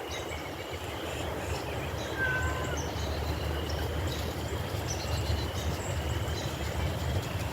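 Faint outdoor birdsong, with a short whistled bird note about two seconds in and thin high calls behind it, over a low rumble of wind on the phone's microphone.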